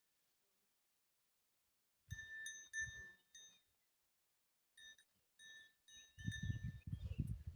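Small metal bell-like object clinking over and over, each stroke ringing at the same pitch, beginning about two seconds in. Heavier low, rough sounds join the clinks near the end.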